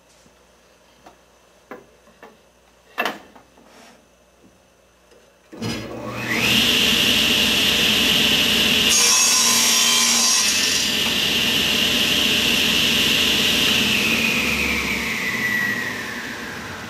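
Table saw switched on about five and a half seconds in, its blade whine rising quickly to speed, after a few light handling clicks. A wooden board is pushed through the spinning blade for about two seconds in a crosscut, then the saw is switched off and its whine falls slowly as the blade coasts down.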